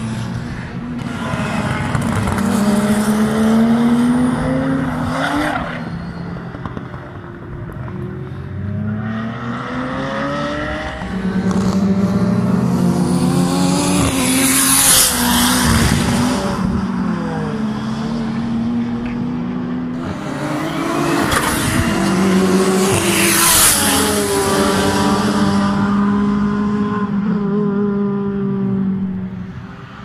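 Nissan S14 with a swapped-in Toyota 2JZ straight-six, revving hard on track; the engine note climbs and drops repeatedly as the car passes, loudest about 15 and 23 seconds in.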